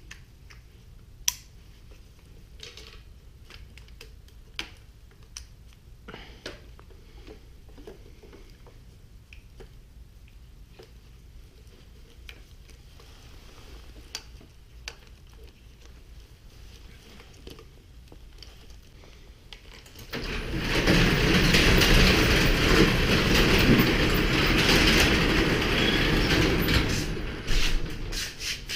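Light clicks and rustles of plastic wiring connectors and leads being handled. About 20 s in, a loud, steady rush of engine noise starts from a car running nearby, not the motorcycle. It drops back to a lower level near the end.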